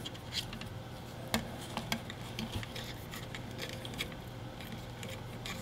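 Quiet handling noise from a plastic zip tie being threaded by hand through a flyback transformer's core and the holes of a circuit board: scattered small clicks and rubs, with a sharper click about a second and a half in.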